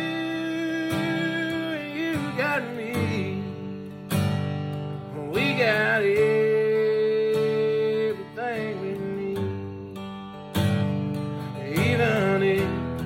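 Country song with acoustic guitar and a singer holding long notes.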